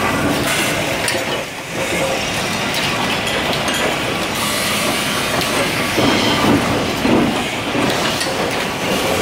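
Factory-floor din of flywheel-driven mechanical power presses stamping sheet-metal lamp parts: a steady loud machine clatter full of quick metallic knocks.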